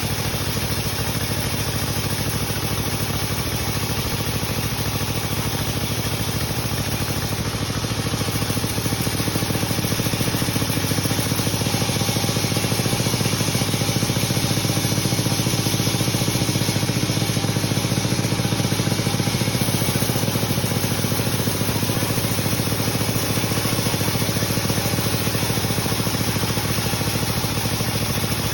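Sawmill machinery running steadily, an engine-driven hum under a broad hiss of sawing, getting slightly louder about eight seconds in.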